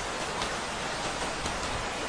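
Steady rain falling: an even hiss with faint drop ticks scattered through it.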